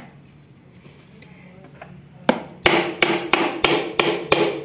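A screwdriver knocking against a coconut's hard shell: about seven quick sharp strikes, roughly three a second, starting about halfway through, each with a faint ring. The shell is being worked loose from the meat.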